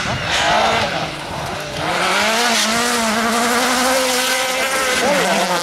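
Small hatchback rally car passing at speed on a snowy stage, its engine revving hard. The pitch dips briefly about two seconds in, climbs again and holds high, then falls near the end.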